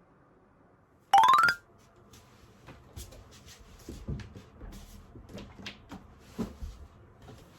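A short, loud rising run of chime-like tones about a second in, then scattered light clicks and knocks of household items and storage fittings being handled.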